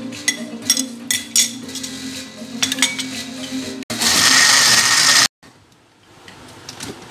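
Sharp clinks and knocks of a spoon against a plastic blender jar as ingredients go in, then an electric countertop blender runs loudly for about a second and a half and cuts off suddenly.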